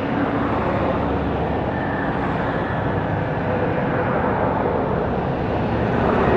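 Airbus A330-300's Rolls-Royce Trent 700 jet engines on landing approach: a steady rush of engine noise with a faint whine, growing a little louder near the end.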